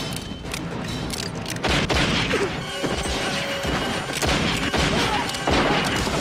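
A gunfight: revolver shots fired in rapid succession, many of them overlapping, with film music underneath.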